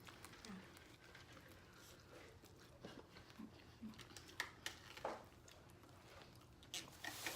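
Faint close-up eating sounds: quiet chewing and biting of corn on the cob, with scattered small clicks and crunches, and a few sharper clicks about four to five seconds in and near the end.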